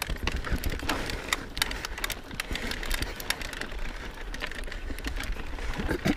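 Knolly Fugitive mountain bike rolling fast down rocky dirt singletrack: tyres crunching over gravel and stones, with many sharp clicks and rattles from the bike. Wind rumbles on the microphone throughout.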